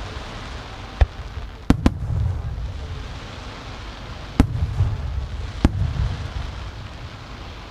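No. 5 (15 cm) aerial firework shells bursting overhead in rapid succession: five sharp booms, two of them close together, each followed by a low rolling rumble.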